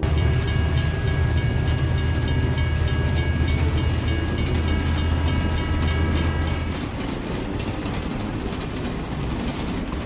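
A train running on rails: a heavy low rumble with a steady clickety-clack of wheels over the rail joints and a few steady high tones over it. About seven seconds in the rumble and tones drop away, leaving a lighter clatter.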